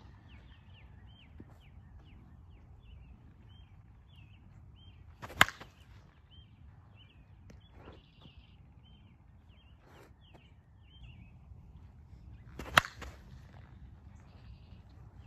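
Two sharp cracks of a slowpitch softball hit off a new Easton Alpha two-piece bat, about seven seconds apart, the first about five seconds in and the second near the end.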